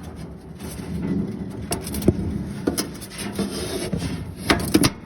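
Steel grill parts scraping and knocking together as a firebox inlet grate is fitted into a Masterbuilt grill. The rubbing is broken by several sharp knocks, two of them close together near the end.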